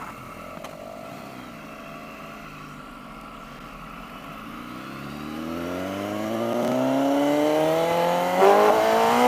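Motorcycle engine under way, running quietly at first, then accelerating hard, its pitch climbing steadily and growing louder over the second half.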